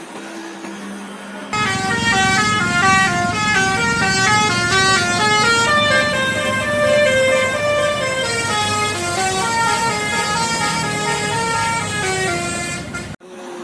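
Basuri telolet bus horn playing a fast melody of short stepped notes. It starts about a second and a half in and cuts off abruptly near the end.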